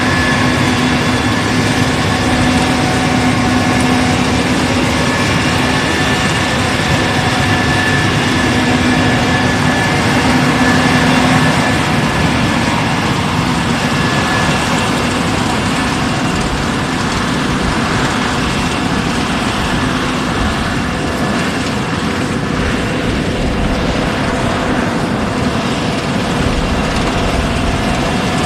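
Case IH 6140 combine harvester running steadily, a loud continuous machine drone with a low hum that fades about twelve seconds in.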